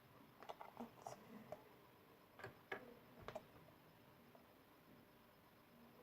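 Near silence, with a few faint, short clicks and taps from handling things, about a second in and again near the middle.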